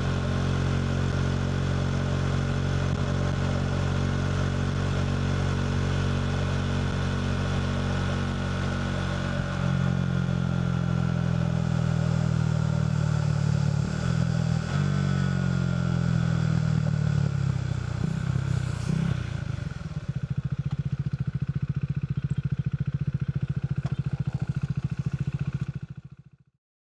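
KTM RC 390 single-cylinder engine through a Two Brothers slip-on exhaust. It runs steadily, then gets louder and its pitch falls slowly over several seconds. After a few brief clatters it settles into an even, pulsing idle, which cuts off abruptly near the end.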